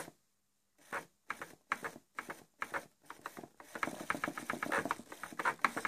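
Hobby RC servos whirring in short bursts as the transmitter stick is moved, their motors and gear trains buzzing with each move. The bursts come about every third of a second at first, then run close together and almost without pause from a little over halfway in.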